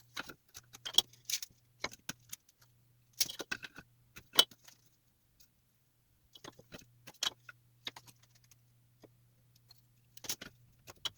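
Scattered light clicks, taps and small metallic clinks from tools being handled on a workbench, over a faint steady low hum.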